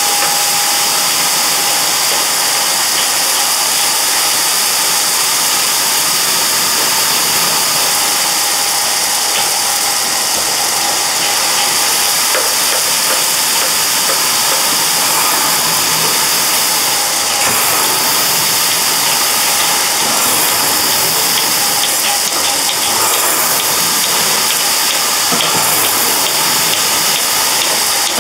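Small konpeito sugar candies tumbling and sliding in a large rotating metal pan, a steady dense hiss of rolling grains, with the pan's geared drive running underneath.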